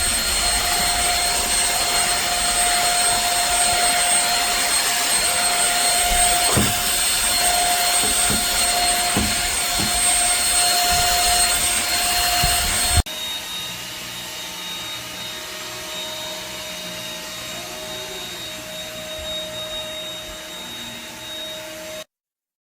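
Dirt Devil Simpli Stik stick vacuum running with a steady whine, with a few light knocks a little past a third of the way in. Just over halfway it cuts abruptly to a quieter stretch of the motor running steadily.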